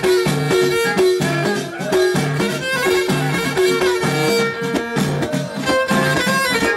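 Live Middle Atlas Amazigh folk band playing a loud, repeating dance tune: a violin melody over frame drums beating a steady rhythm.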